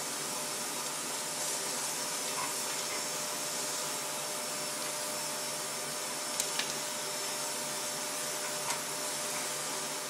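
Vacuum cleaner running steadily, a constant hiss with a steady whine. A few brief sharp clicks about six and a half seconds in and again near the end.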